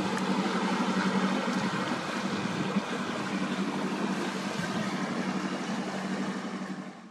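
Motor cruiser's inboard engine running steadily as the boat passes, with water washing along the hull. It grows slightly fainter as the boat moves away, then fades out abruptly at the end.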